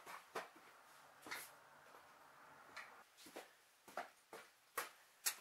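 Faint, scattered knocks and clicks of a person moving about and handling things, spaced roughly a second apart, with a few sharper clicks near the end.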